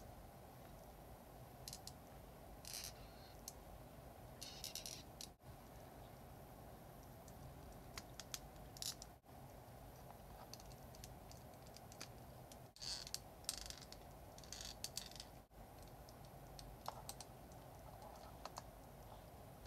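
Hard plastic parts of an HG Agrissa Gundam model kit clicking and scraping as they are handled and snapped into new positions by hand, in scattered short bursts over a faint steady background hum.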